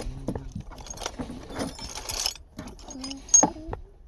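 Metal objects clinking and clattering as they are handled and moved, with a sharp, loud knock about three and a half seconds in.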